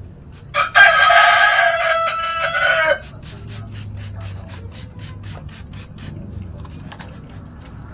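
A loud pitched animal call lasts about two seconds near the start. Then a Weapon Ambush bicycle hub's freewheel ticks evenly, about four clicks a second, as the wheel or cranks turn slowly.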